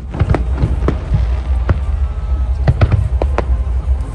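Aerial fireworks bursting over a steady low rumble: a quick, irregular series of sharp bangs, about eight in four seconds.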